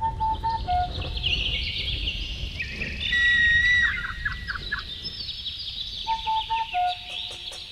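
Birds calling and chirping over a low rumble. A short call of a few notes stepping down in pitch comes near the start and again about six seconds in.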